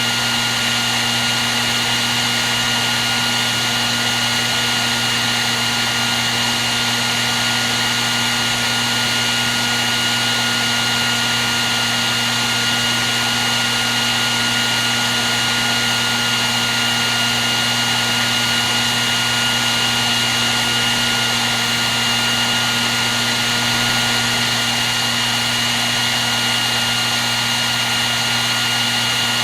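Handheld hair dryer running continuously: a steady rush of blown air with a constant motor whine and low hum.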